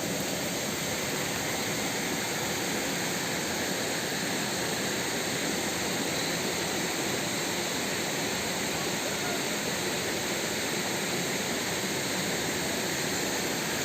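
Steady rush of river water flowing over rocks, an even hiss that does not change.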